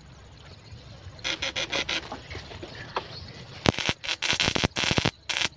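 Platinum-point (contact-breaker) fish electroshocker on a test run, its freshly rewound coil and points giving off a loud, irregular electric crackle. A short burst comes about a second in, and a longer run of rapid crackles starts near the end.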